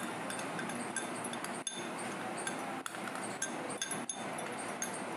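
Small glass bowls clinking lightly as they are handled and tipped out, with many short, scattered clinks over a steady background hiss.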